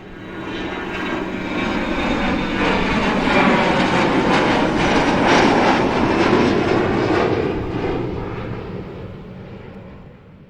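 Jet aircraft flying over: the engine noise swells in, peaks near the middle and fades away, with its pitch sliding downward as it passes.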